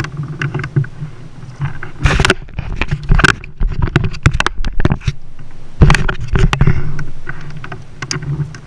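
Clicks, knocks and rattles of an action camera being handled on its mount aboard a fishing kayak, in several clusters over a low steady rumble.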